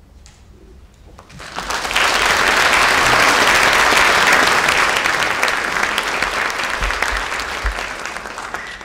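A hall audience applauding. It starts about a second and a half in, swells quickly to a full, steady clapping, and dies away near the end.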